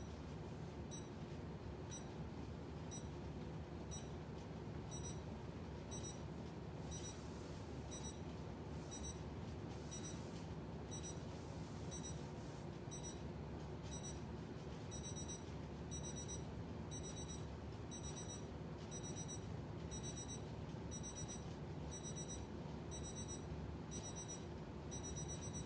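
Faint short high-pitched electronic beeps repeating about once a second, like a clock or timer, over a steady low hum; near the end the beeps come in a rapid string.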